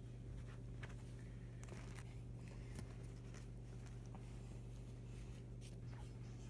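Faint rustling and soft clicks of bedding fabric being pulled back and handled, over a steady low hum.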